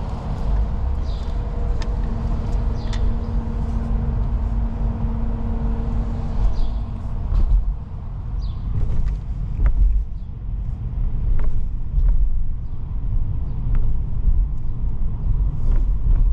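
Car driving away, heard from inside: a steady low rumble of engine and road noise, with a steady hum from about two to seven seconds in and scattered small knocks and swells after that.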